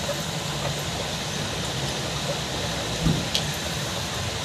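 A small plastic deli-cup lid handled on a countertop: a soft knock about three seconds in, followed quickly by a light click, over a steady background hiss.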